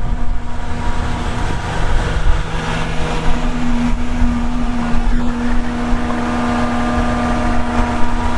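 PTO-driven hydraulic pump on a Chevy 3500HD's 10-speed transmission running under load, with the engine held at a raised idle of about 1700 RPM, as the dump bed's hydraulic cylinder lifts the bed. The pump and engine make a steady mechanical hum, with a steady tone that grows stronger about three seconds in.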